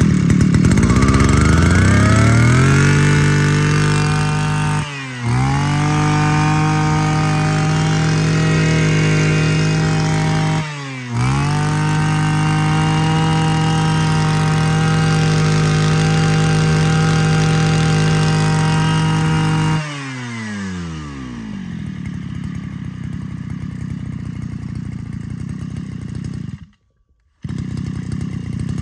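Mitsubishi TB33 two-stroke brush cutter engine opened up: the revs climb over the first few seconds and are held high, with two brief dips, then fall back to idle about twenty seconds in. Near the end the sound cuts off for under a second and then resumes.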